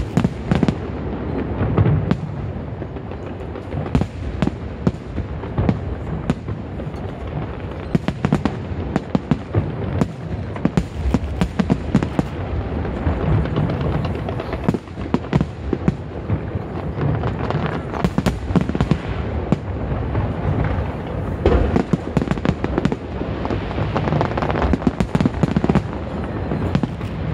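Aerial fireworks bursting without pause: many sharp bangs in quick succession over a continuous rumble and crackle.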